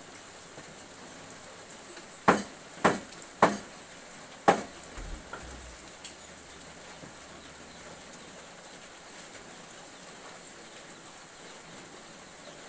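Four sharp clanks of a metal cooking utensil against a wok, starting about two seconds in and spaced about half a second to a second apart, then a faint steady hiss.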